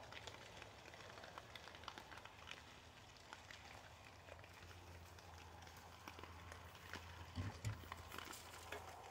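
Faint crunching and rooting of a group of wild hogs feeding on corn kernels: many small irregular clicks over a low steady hum, with two short low sounds about seven and a half seconds in.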